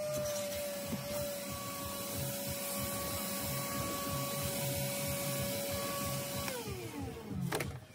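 Vacuum cleaner running with a steady whine and hiss, then switched off about six and a half seconds in, the whine falling as the motor spins down.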